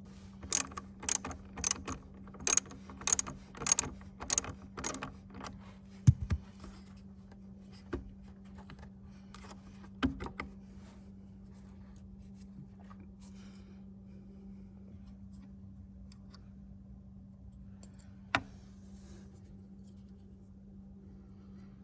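Ratchet wrench clicking in short strokes, about two a second for the first five seconds, loosening the battery's negative terminal clamp. Then a few separate knocks and clicks as the terminal and the battery sensor connector come off, with one sharp click near the end, over a faint steady hum.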